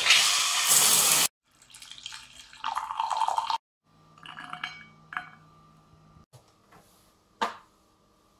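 Water spraying from a shower head for about a second, then cut off suddenly. Short, quieter snippets of other household sounds follow, ending with a single sharp click.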